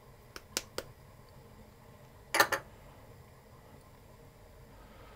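A few light clicks, then a louder double clink about two and a half seconds in: small dishes knocking against a mixing bowl as dry ingredients are tipped into it.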